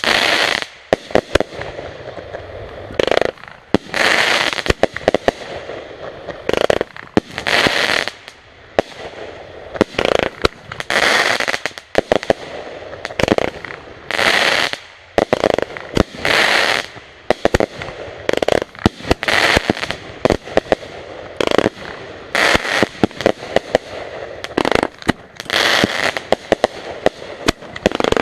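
Backyard consumer fireworks going off in quick succession: sharp bangs and crackling, hissing bursts, a second or two apart without a break.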